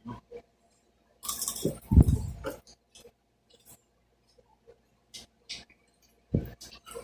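Close-up eating sounds: crackly bites and chewing of a fried cheese stick (cheese in a lumpia wrapper). The louder crunching comes in bursts, one about a second in and another near the end.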